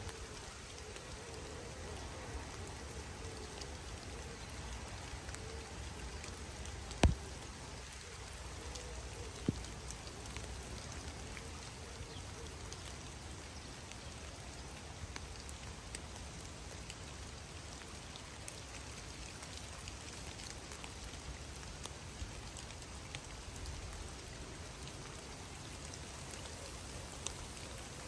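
Steady rain falling on a river, an even patter of drops with scattered small ticks. A single sharp tap stands out about seven seconds in, and a softer one a couple of seconds later.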